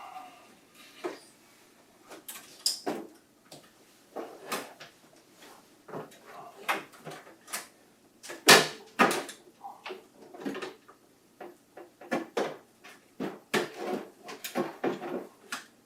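Plastic parts of an inkjet printer's housing and scanner unit clicking, knocking and scraping as they are handled and fitted back together, in irregular taps with the loudest knock about eight and a half seconds in.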